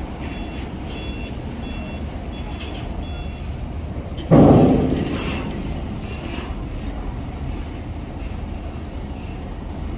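Heavy truck engines running with a steady low rumble. A reversing alarm beeps at even intervals, a little under one beep a second, for the first three seconds. About four seconds in there is one sudden loud burst that dies away over about a second.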